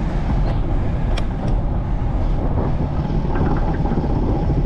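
Steady wind rumble on the microphone of a moving bicycle, mixed with tyre noise on the street, and two sharp clicks a little over a second in.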